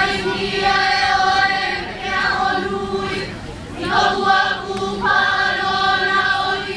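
A group of voices singing together in held phrases of a second or two, with short breaks between phrases.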